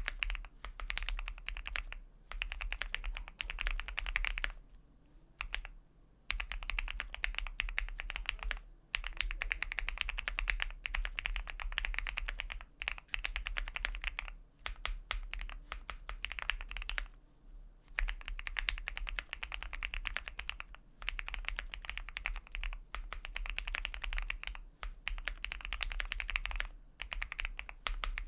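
Continuous typing on a QK75 mechanical keyboard with a polycarbonate plate, lubed Gateron Milky Yellow linear switches and GMK keycaps: rapid keystrokes in bursts of a few seconds, broken by brief pauses.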